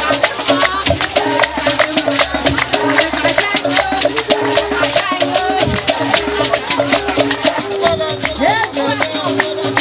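Music for a traditional troupe dance: dense, fast rattling percussion keeps a steady rhythm under a repeating melody line.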